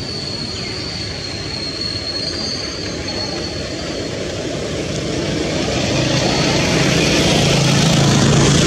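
Motor vehicle approaching: a steady rushing noise that grows louder, with a low engine hum coming in over the last few seconds.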